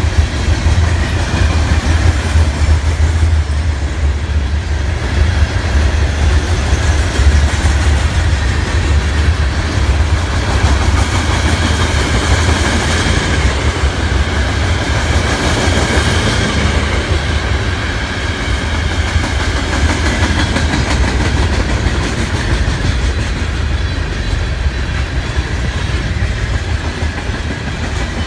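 Freight cars of a long mixed freight train rolling past close by: a steady, loud low rumble of steel wheels on the rails.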